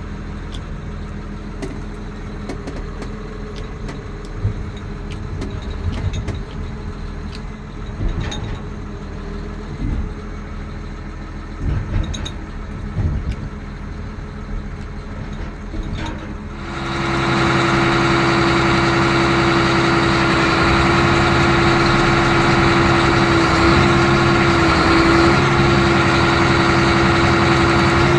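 Prinoth Bison X snowcat's diesel engine running, a low rumble with scattered knocks. About two-thirds of the way in it suddenly becomes louder, with a steady whine held over the engine.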